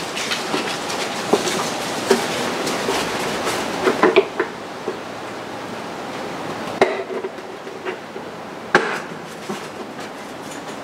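Hard plastic top cover of a 2009 Yamaha HPDI 225 outboard being fitted back over the engine. It scrapes and rustles against the powerhead for the first few seconds, then gives a few sharp knocks as it is pressed and seated into place.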